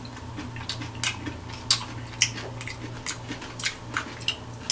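A person chewing a crisp pickle chip: a run of short, irregular crunches, several a second, over a low steady hum.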